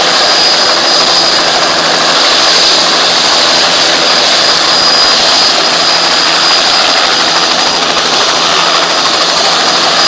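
Bell 206 JetRanger helicopter running on the ground with its main rotor turning: the Allison 250 turboshaft's steady high-pitched whine over a loud, even rush of engine and rotor noise.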